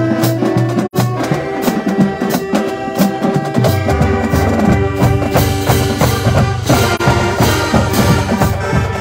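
College marching band playing a tune in the stands, woodwinds and brass over a steady drum beat. The sound cuts out for a moment about a second in.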